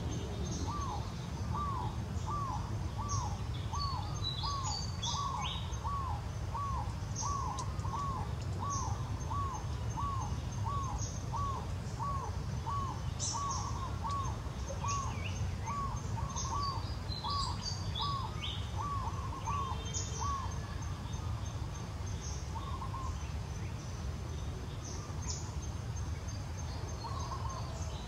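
A bird calling one clear, arched note over and over, about three every two seconds, which stops about two-thirds of the way through with a couple of stray calls later. Scattered high chirps of other birds sound over a steady low rumble.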